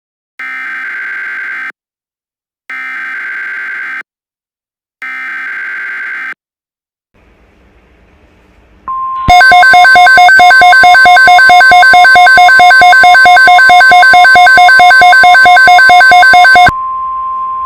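Emergency Alert System sequence on NOAA Weather Radio. It opens with three short screeching SAME data bursts, the digital header of the alert. From about nine seconds in, a steady alert tone sounds and becomes very loud for about seven seconds, then continues at a lower level near the end. The sequence signals that a tornado watch is being issued.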